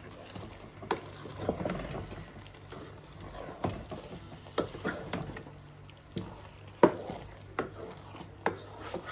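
A spoon stirring and scooping thick porridge beans in a pot, with irregular knocks and scrapes of the spoon against the pot. The sharpest knock comes nearly seven seconds in.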